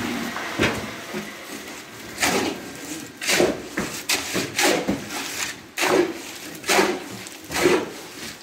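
Steel shovel scraping and scooping cement mortar on a concrete floor, in a run of about seven sharp strokes roughly a second apart that begins about two seconds in.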